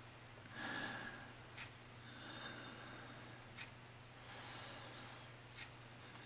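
A man's faint breathing through the nose: three soft breaths about two seconds apart, with a few small mouth clicks, over a steady low hum.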